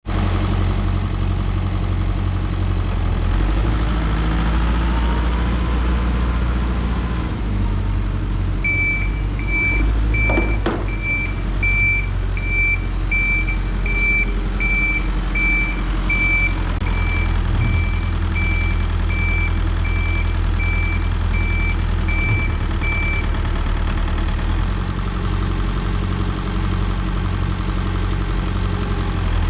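Volvo BL71 backhoe loader's diesel engine running steadily, its pitch rising and falling as the revs change in the first few seconds. Its reversing alarm beeps in an even rhythm, a bit more than once a second, from about a third of the way in until a little past the middle, with a single sharp clank near the start of the beeping.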